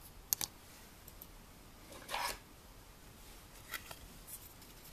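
Faint handling of decorated metal paper clips and cardstock embellishments on a tabletop: a couple of small clicks just after the start, a brief rustle about two seconds in, and a lighter one near the end.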